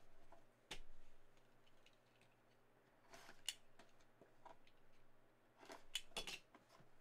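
Faint handling noises from a sealed collectible trading-card box being opened by hand. There are a few short scrapes and clicks, and the loudest cluster comes near the end.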